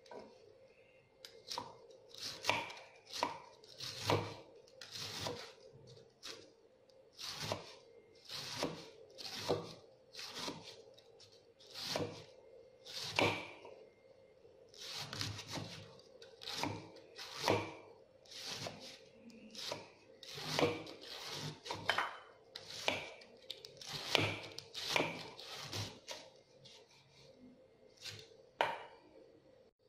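Knife shredding a head of green cabbage against a wooden chopping board, a run of crisp cuts about one or two a second.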